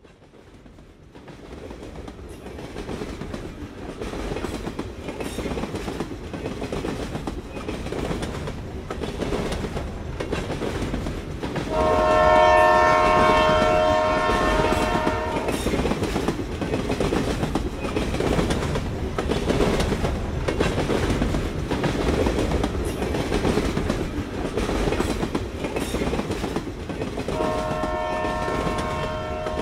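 Train running along the track, fading in over the first few seconds, with its horn sounding a chord twice: a blast of about three and a half seconds some twelve seconds in, and another starting near the end.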